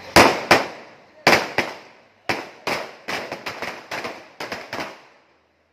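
A string of firecrackers going off: about fifteen sharp bangs at irregular intervals, the first two the loudest, stopping about five seconds in.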